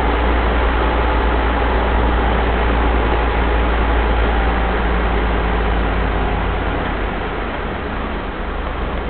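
1983 Mitsubishi Pajero's turbo-diesel engine running steadily under way, with a heavy low rumble and road noise, heard from inside the cabin. It drops a little in loudness about six seconds in.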